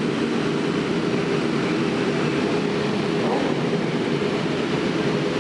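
Many superbike engines running together on the starting grid, a steady dense drone without clear individual revs.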